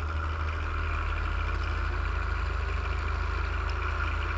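Farm tractor engine running steadily with a low rumble.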